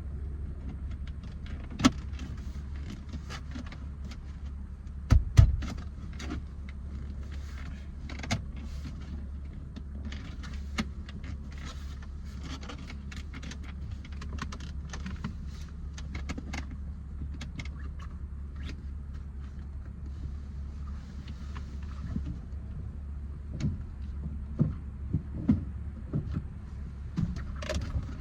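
Scattered clicks, taps and knocks of hands and tools working on a car's shift boot and centre console, over a steady low hum, with a heavier knock about five seconds in and a run of knocks near the end.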